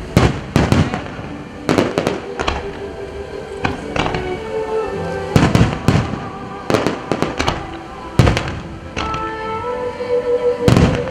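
Wide star mine fireworks barrage: a dozen or more sharp bangs of bursting shells at uneven intervals, with music from the display's soundtrack carrying sustained notes underneath.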